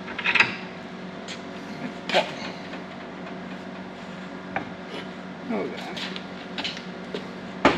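Scattered clinks and knocks of hand tools and metal parts being handled, the sharpest knock near the end, over a steady low hum.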